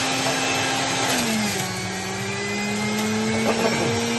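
Electric juicer's motor running with a steady hum. About a second in, its pitch drops as it takes the load of a tomato being fed in, then slowly climbs back up.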